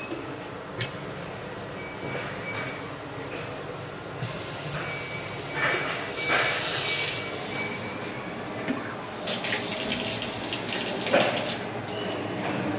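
Water running from a washbasin tap into a ceramic sink and splashing over a hand held in the stream, loudest from about four to eight seconds in.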